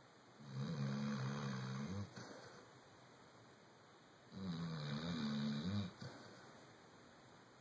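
Chocolate Labrador retriever snoring: two long, pitched snores about four seconds apart, each followed by a softer breathy tail.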